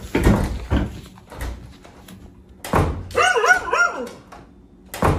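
Thumps of footsteps on a wooden staircase, then, about three seconds in, an animal's quick run of four or five short high cries that each rise and fall in pitch.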